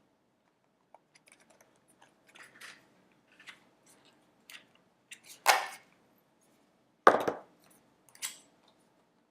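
Unboxing packaging being handled: scattered light rustles and clicks, with two louder knocks about five and a half and seven seconds in, the second with a dull thud.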